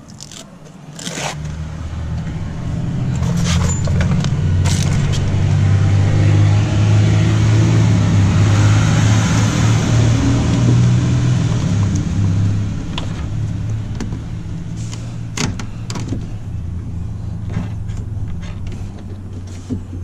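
A motor vehicle passes close by: its engine hum and tyre noise build up, are loudest about halfway through, then slowly fade. A few sharp clicks and rustles from hands handling wire and parts come through on top.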